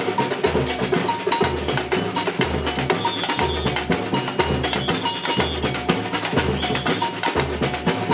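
Samba percussion band playing: surdo bass drums keep a steady low beat under fast, dense drum strokes, with a bell part ringing on top.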